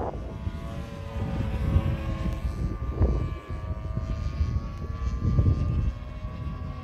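The 30cc petrol engine and propeller of a 78-inch Pilot RC Edge 540 model aerobatic plane, droning as it flies overhead, its note wavering slightly. Wind buffets the microphone underneath, with gusts about three and five and a half seconds in.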